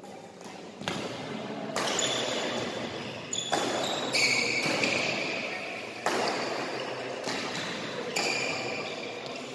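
Badminton rally: a string of sharp racket strikes on the shuttlecock, about one a second, echoing in a large sports hall, with short high squeaks of court shoes on the floor between them.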